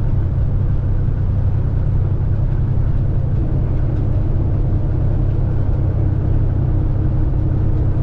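Semi truck's diesel engine running steadily under heavy load on a gentle climb, heard from inside the cab, with the engine cooling fan running.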